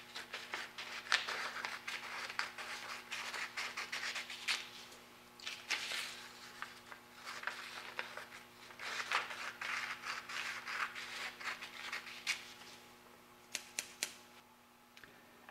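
Scissors cutting a sheet of paper into long strips: runs of crisp snipping with short pauses between cuts, and a few sharp clicks near the end.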